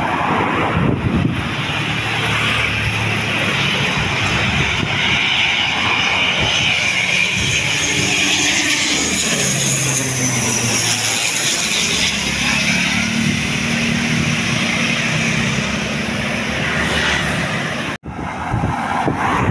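Twin-engine turboprop airplane on landing approach, passing low overhead: loud, steady propeller drone with a high turbine whine whose pitch drops as it goes past, about halfway through. The sound cuts off abruptly near the end.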